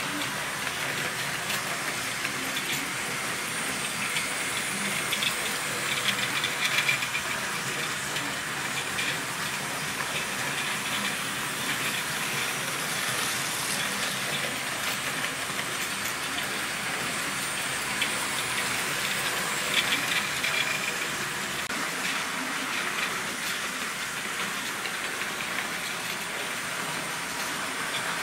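Model trains running round the layout track: a steady rolling hiss of wheels and motors, with a few light clicks. It gets louder twice as a train passes close by, about six seconds in and again about twenty seconds in.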